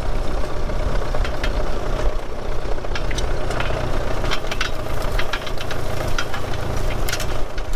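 Ford Model T four-cylinder engine running as the car rolls along railroad track on steel wheels, with scattered clickety-clack clicks from the wheels on the rails. Heavy wind rumble on the microphone.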